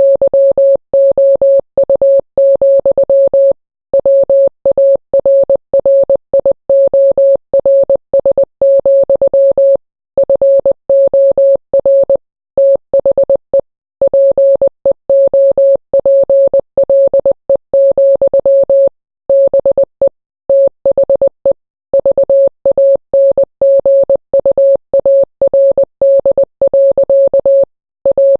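Morse code sounded as a single mid-pitched electronic beep, keyed rapidly on and off in dots and dashes, with slightly longer gaps between groups every few seconds.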